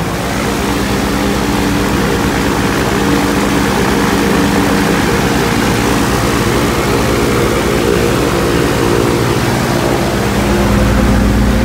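Light airplane's engine and propeller running steadily on the ground, heard from inside the cockpit, with a dense rushing noise over the engine note. The sound grows a little louder and fuller about ten seconds in.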